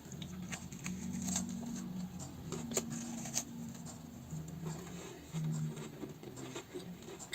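Someone biting into and chewing a crisp, crumbly coconut waffle: faint, scattered crunches and crackles.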